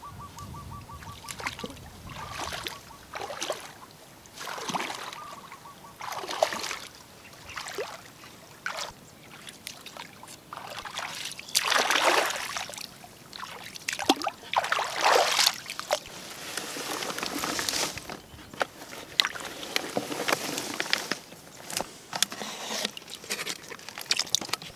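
Shallow muddy water sloshing and splashing as a person wades and lifts plastic-bottle fish traps out, in a series of separate splashes. A short high trill sounds near the start.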